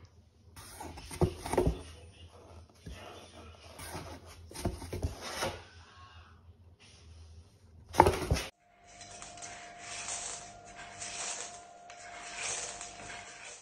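A small ball rolling and knocking around inside a cardboard box as a cat bats at it, with scattered knocks and scraping on the cardboard and a loud knock about eight seconds in. Then, after a sudden cut, a steady background hiss with a thin held tone.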